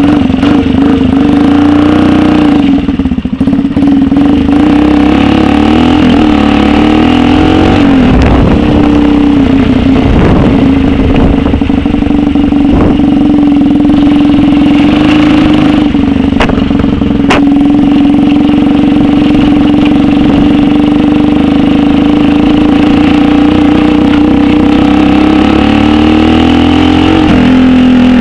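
Megelli 125m supermoto's single-cylinder four-stroke engine, just started and then riding off: the engine note rises and drops over the first several seconds as the bike pulls away and shifts, then holds a fairly steady pitch while cruising, with another change near the end.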